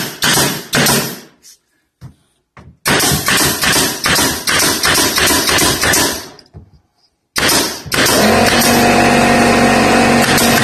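Pneumatic staple gun firing staples through luan plywood underlayment into the wooden step, a rapid series of sharp shots about two to three a second, with a gap of a second or so between runs. About eight seconds in, music starts and continues.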